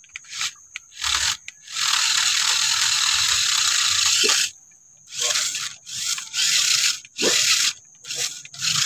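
Toy RC rock crawler's small electric motor and plastic gearbox whirring and grinding in bursts of throttle, one long burst of about two and a half seconds, then several short ones, as the crawler strains on a dirt bank and rolls over.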